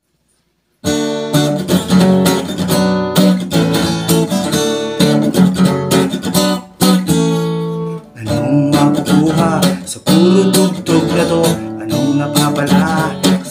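Acoustic guitar strummed in chords as a song's opening, starting about a second in.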